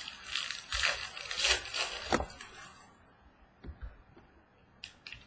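Rustling and crinkling of a trading-card pack and cards being handled for about two seconds, then a few faint taps of cards on the table.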